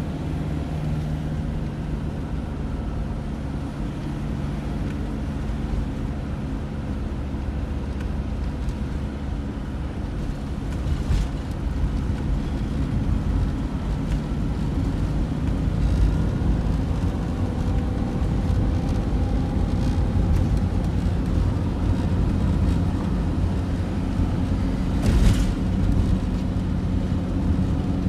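Road vehicle driving at a steady speed: a continuous low drone of engine and tyres, with a brief hiss near the end.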